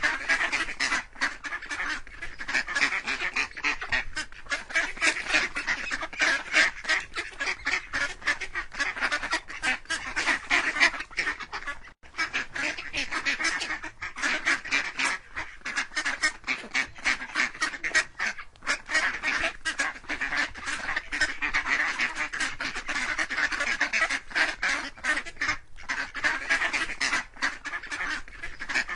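Ducks quacking in a dense, unbroken stream of short calls.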